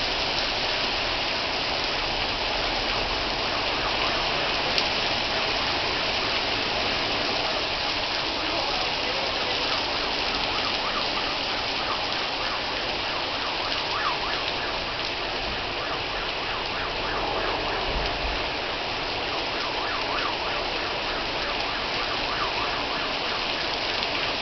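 Heavy rain pouring down onto the street in a steady, dense hiss that holds at one level throughout.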